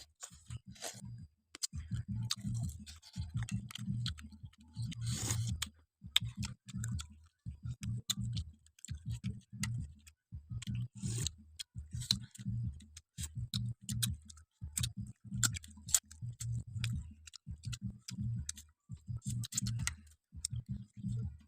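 A person chewing a snack with the mouth close to the microphone. The chews come in a steady rhythm of about one and a half a second, each a low thud with sharp crackly clicks on top.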